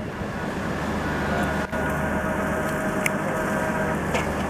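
Diesel engines of a standing passenger train idling with a steady low hum, a faint thin tone coming in about a third of the way through and a few light clicks.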